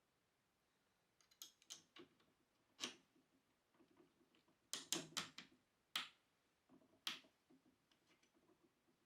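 Faint, sharp clicks and taps of a swivel caster's metal bracket and hardware being handled and fitted onto a desk leg, scattered and irregular, with a quick cluster of them about halfway through.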